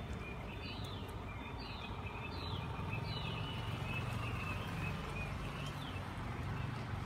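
A small bird chirping: several short, high, falling notes, most of them in the first half, over a steady low rumble like traffic.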